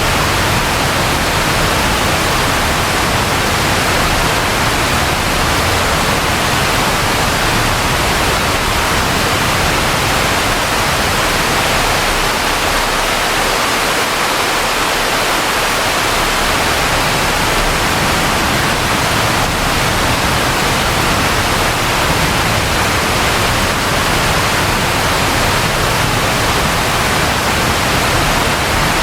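Steady rainfall, a dense even hiss, with a low uneven rumble underneath that thins out for a few seconds midway.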